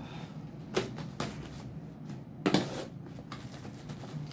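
Scissors cutting the packing tape on a cardboard box, with the box being handled: a few sharp snips and knocks, the loudest about two and a half seconds in.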